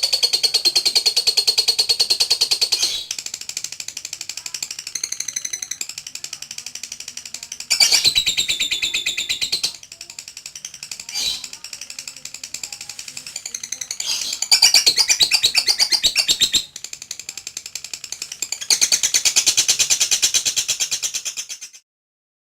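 Lovebird singing its ngekek: long runs of rapid, high-pitched chattering trills lasting several seconds each, with short dips between, stopping abruptly near the end.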